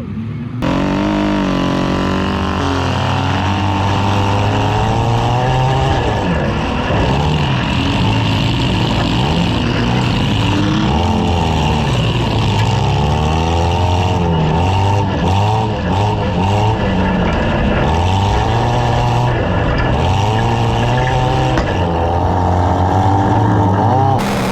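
Several compact demolition-derby car engines revving at once, their pitches rising and falling over one another in a continuous loud din, with a few sharp knocks around the middle.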